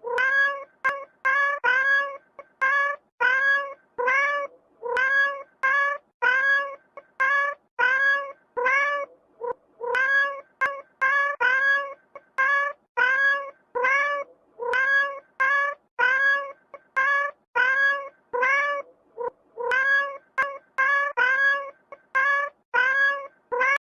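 A kitten meowing over and over: short, high calls that rise in pitch, about two a second.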